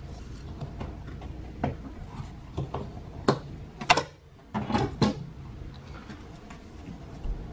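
Hands working in a car's engine bay: scattered sharp clicks and clacks from pliers, a hose clamp and plastic hoses and ducts being handled, about six distinct knocks over a few seconds.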